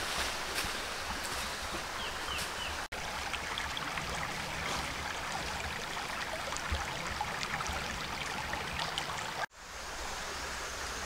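Steady rushing of a flowing forest stream, with small clicks and a few brief high peeps over it; the sound drops out for an instant about three seconds in and again near the end.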